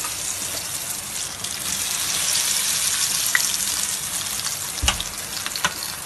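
Hot oil sizzling steadily with scattered crackles as shredded-potato bird nests deep-fry in a pan. A single low thump comes about five seconds in.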